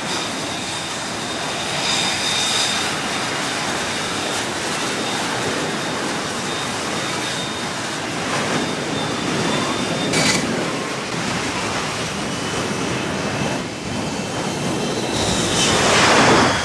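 F-35B jet engine with its lift fan running at high power in a hover, a steady rushing noise with a high whine. It swells a few times and is loudest near the end.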